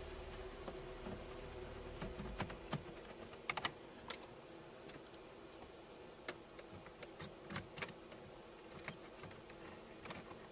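Irregular small clicks and ticks of a screwdriver and plastic dashboard trim as screws are driven into the climate-control panel surround, over a faint steady hum. A few louder clicks come a little over two seconds in and again around three and a half seconds in.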